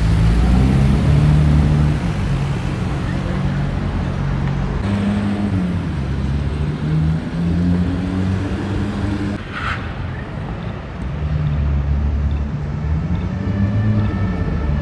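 Sports car engines running in street traffic, their pitch stepping up and down with the revs. The sound changes abruptly about five and nine and a half seconds in.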